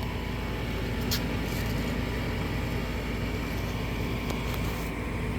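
Lennox Merit series furnace running with a steady motor hum, with faint clicks about a second in and again just past four seconds.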